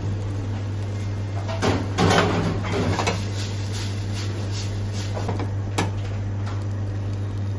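A stainless steel sauté pan of pasta and clams being tossed and shaken on a gas range: scrapes and knocks of the pan against the burner grate, loudest about two seconds in, over a steady low hum.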